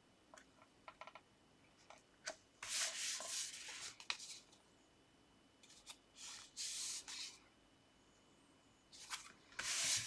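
Sheets of card and paper being handled and rubbed against each other: a few small taps, then three separate bursts of dry, papery rubbing.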